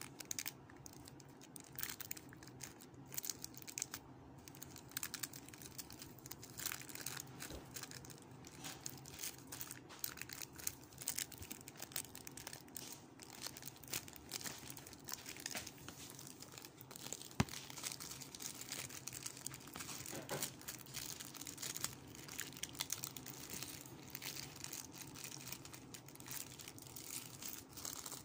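Clear plastic packaging crinkling and rustling in irregular crackles as it is handled and pulled open, with one sharp click a little past halfway.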